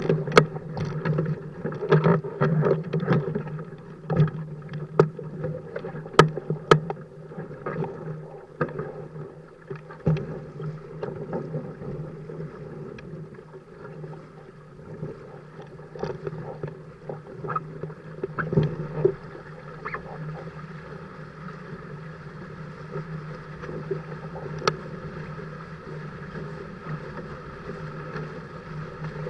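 Dart 15 Sting catamaran under sail: water rushing and slapping against the hulls under a constant low hum. Many sharp splashes come in the first several seconds, then the wash settles to a steadier level with only a few slaps.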